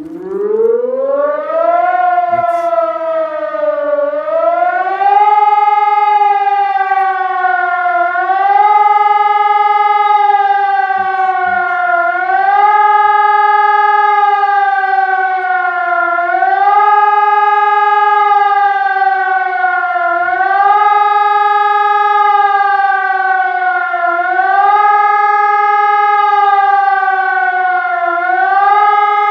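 Civil defense siren sounding a test alarm. It winds up in pitch over the first few seconds, then keeps up a loud howl that rises and falls about every four seconds.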